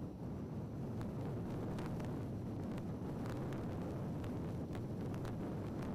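Steady low rumble of blizzard wind, with scattered faint sharp ticks through it.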